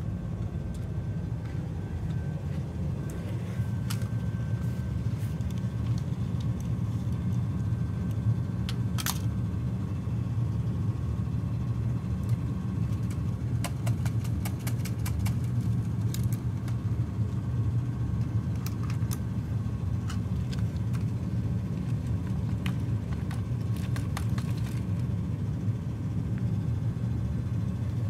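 Steady low rumble of a large drum fan running, with scattered sharp clicks and clacks of hard plastic toy animals being handled and set down, including a quick run of clicks about halfway through.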